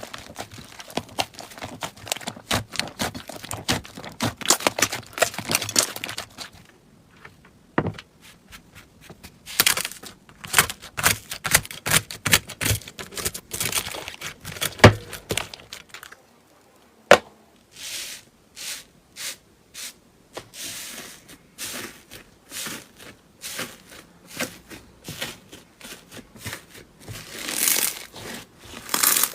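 Slime being handled by hand, a run of crackling pops and sticky snaps, with a few sharper single clicks and short pauses.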